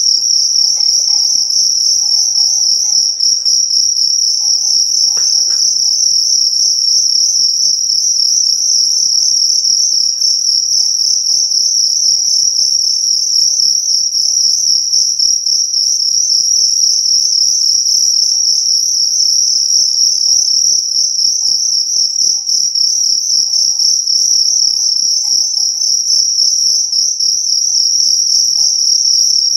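Fighting cricket singing at close range: a loud, unbroken high-pitched trill with a fast pulsing texture.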